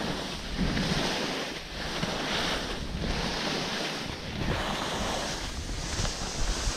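Skis hissing and scraping over spring snow, swelling and easing with each turn, with wind rushing over the action camera's microphone.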